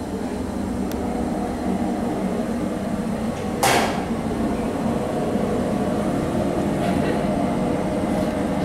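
Cremator door mechanism: a sharp clack just under four seconds in, then the heavy steel door sliding up with a steady mechanical rumble that grows a little louder.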